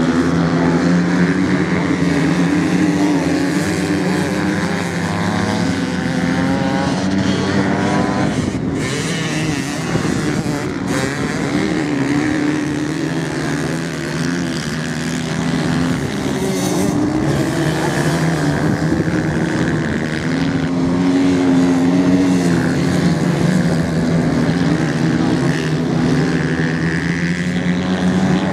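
Several off-road motorcycle engines racing together on a sand track, their pitch rising and falling as the riders open and close the throttle.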